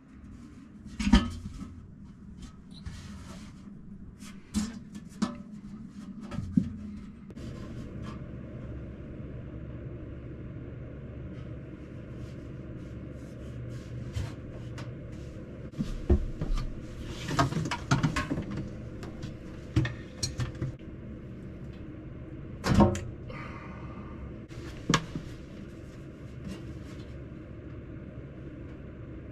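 Scattered knocks, bumps and clunks of a stainless steel sink being worked up into its wooden countertop cutout from inside the cabinet below. A steady low hum joins in about seven seconds in.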